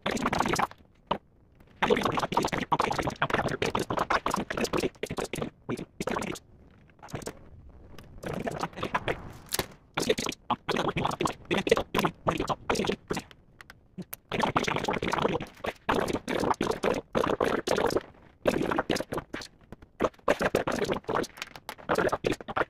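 Hands working computer parts and cables on an open-frame mining rig: clicking, scraping and rattling in several bursts, with short pauses in between.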